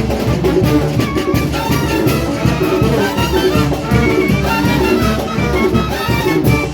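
Mexican brass band (banda) playing a Latin dance tune with trumpets, trombones and a steady bass and percussion beat.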